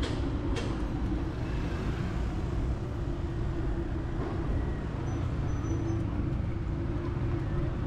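Road traffic noise heard from a moving bicycle, with a steady low rumble and a single sharp click about half a second in.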